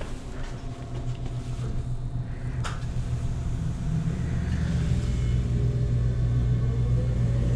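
Low steady hum of a refrigerated Pepsi vending machine, growing gradually louder. A single sharp click comes about two and a half seconds in.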